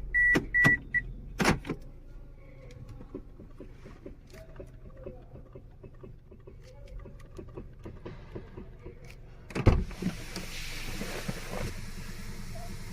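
A car's electronic warning chime beeps about four times a second and stops about a second in. A sharp click follows, then light clicks and rustling, a thud near ten seconds, and after it a steady hiss.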